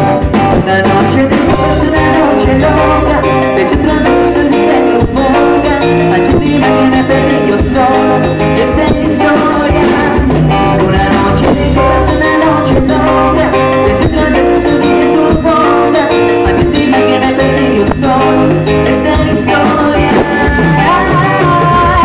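Live Latin band playing loudly through a large PA system: electric guitars over a drum kit, in a steady, continuous groove.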